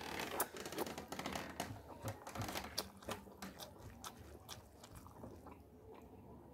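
Close-miked chewing of a mouthful of rice, with many sharp wet mouth clicks that thin out and get quieter over the last couple of seconds.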